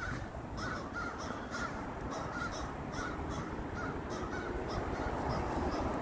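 Crows cawing in a rapid series of short, harsh caws, about two or three a second, over a steady low rumble.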